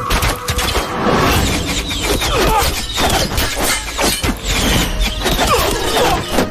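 Film sound effects of an arrow volley in an ambush: many rapid falling whizzes and sharp cracking impacts, close together, over a heavy low rumble.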